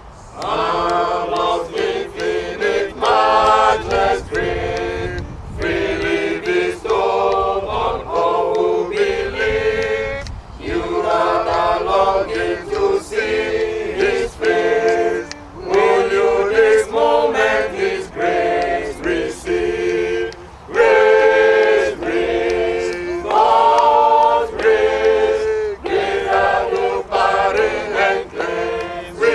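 Congregation singing a hymn together, many voices unaccompanied, in phrases with short breaks between lines.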